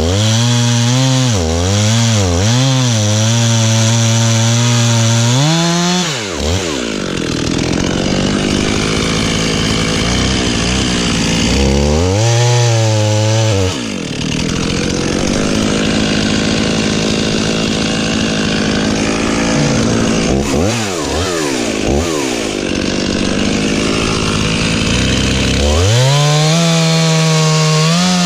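Stihl MS311 two-stroke chainsaw cutting through an elm trunk in three long stretches, with the engine revving up and down between the cuts. Near the end it drops to a lower, steadier speed.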